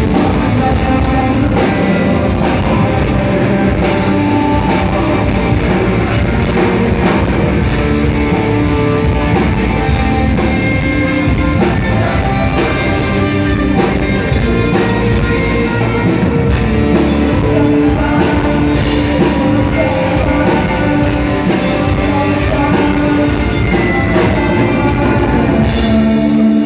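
Rock band playing a song, with guitars and a drum kit at full, steady loudness.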